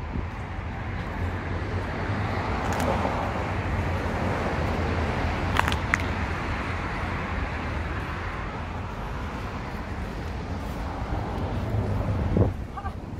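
Outdoor city ambience: a steady low rumble of road traffic that swells about three seconds in, with a few sharp clicks in the middle and a brief pitched sound near the end.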